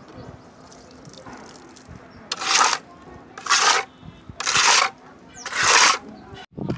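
Steel trowel scraping across fresh textured coating on an exterior wall in four strokes, each about half a second long and about a second apart.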